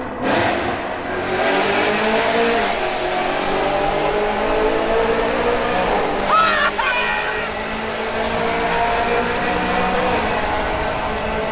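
BMW E92 M3's S65 V8 with a straight-pipe exhaust, accelerating in a tunnel. The engine note climbs in pitch over the first couple of seconds, then runs steadily.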